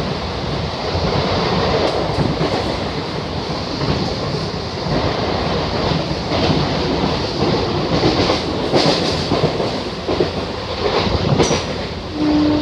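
Inside an Indian Railways EMU local train coach running at about 90 km/h: the steady rumble and rattle of the carriage, with the wheels clattering over rail joints and a few sharper knocks. A steady horn note starts just before the end.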